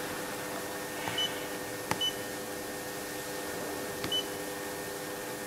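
Touchscreen control panel of an FPM inkjet printer giving short, high key beeps as it is tapped: three beeps, two of them just after a click. A steady low hum runs underneath.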